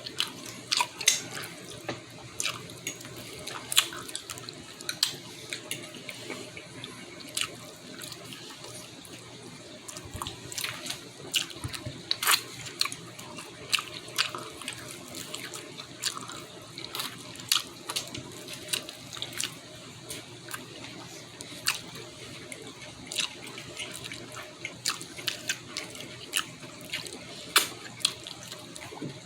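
Close, wet eating sounds: smacking lips and chewing on barbecued pork ribs and corn, with many sharp irregular clicks, about one or two a second.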